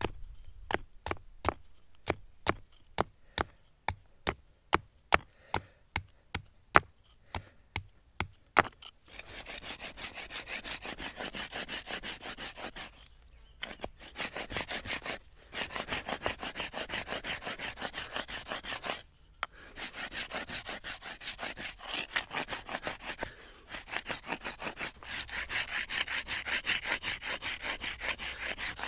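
About eighteen sharp knocks, roughly two a second, of a hand-held stone striking on a boulder. Then, from about nine seconds in, a fast steady rasping with a few short pauses: the end of a wooden bow-drill spindle being ground back and forth on the rough stone to shape its point.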